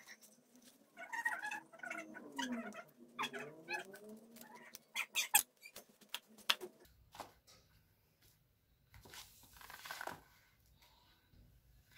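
An animal call held long and bending up and down in pitch, twice in the first few seconds. It is followed by sharp clicks and rustling as a sandal is handled on newspaper.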